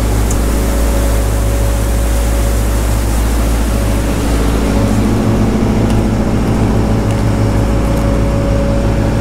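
Charter boat's engine running steadily under way, a loud continuous drone. About four and a half seconds in, its low hum grows a little stronger.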